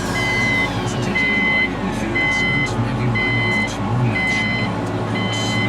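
Electronic beeping at one steady pitch, a half-second beep about once a second, over a low rumble; a thin tone falls in pitch through the first three seconds.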